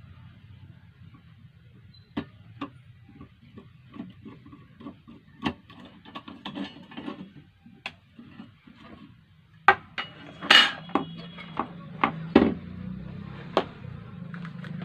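Scattered clicks and knocks of small tools and parts being handled while working on a sewing machine foot pedal, the loudest cluster of knocks about ten to twelve seconds in. A low hum runs underneath and grows stronger near the end.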